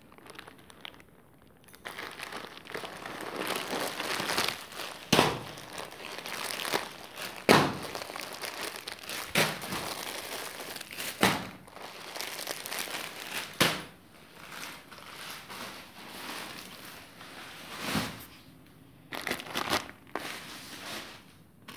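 Plastic (cellophane) saree packets crinkling and rustling as they are handled and shifted, with several sharp crackles.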